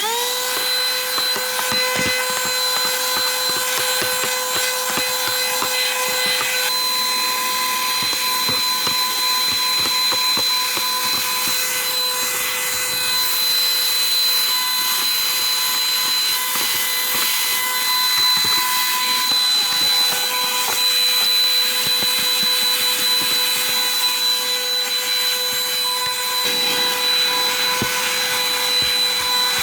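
Mini cordless car vacuum cleaner switched on, its small motor quickly spinning up to a steady high whine over a rush of air. The nozzle rubs and scrapes irregularly over surfaces while it vacuums.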